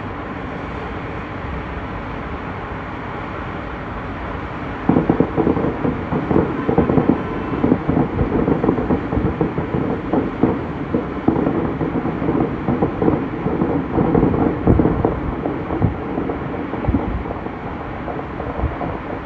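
Fireworks popping and crackling in a rapid, dense run that begins about five seconds in, after a stretch of steady rushing noise.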